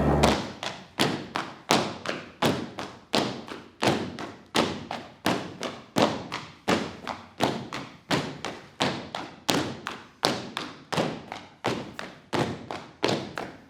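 Performers stamping and slapping in a steady rhythm: sharp thuds about three every two seconds, with lighter taps and slaps between.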